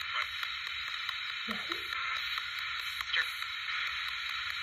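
SB-7 spirit box sweeping through radio stations: a steady hiss of static broken by rapid, regular ticks as it jumps from station to station, with a couple of brief fragments of broadcast sound about one and a half and three seconds in.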